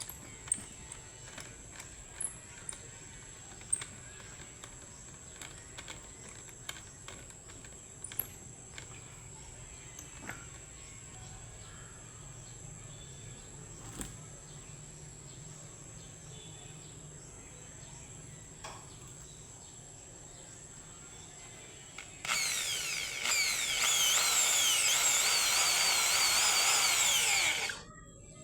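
Electric power tool working wood for about five seconds near the end, its pitch wavering up and down as it bites, then cutting off sharply. Before it, only faint scattered clicks over a thin steady high tone.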